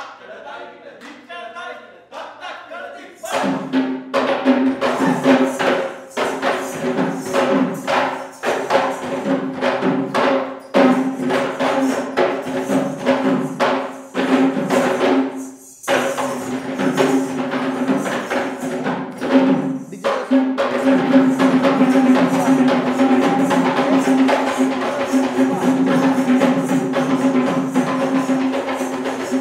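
A voice chants briefly. About three seconds in, a group of Kandyan geta bera, double-headed barrel drums played by hand, come in with fast, driving rhythmic patterns. The drums pause briefly a couple of times and grow louder and denser over the last third.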